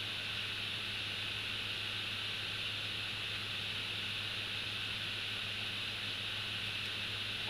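Steady hiss with a low, even hum underneath and no distinct events.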